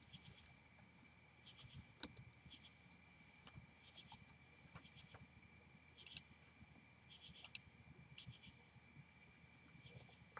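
Near silence: a faint steady high-pitched whine, with scattered faint clicks of a computer keyboard and mouse during a web search.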